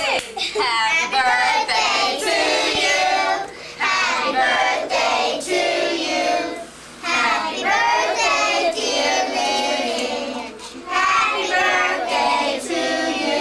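Children singing together in high voices, in phrases of a few seconds with short breaks between them.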